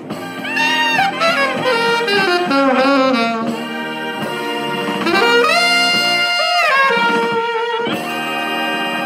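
Tenor saxophone playing a fast jazz line: quick runs of short notes for the first few seconds, then longer held notes, some bent slightly in pitch.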